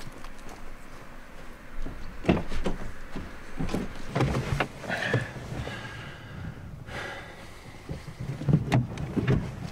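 Car door of a Volkswagen Golf estate being opened and shut: several separate knocks and thumps, the last ones near the end.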